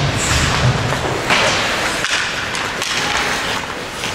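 Several thuds and knocks from ice hockey play, over the rink's steady hiss.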